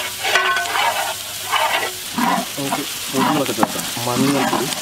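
Onions frying and sizzling in oil in a large, wide cooking pan, stirred and scraped with a long metal ladle.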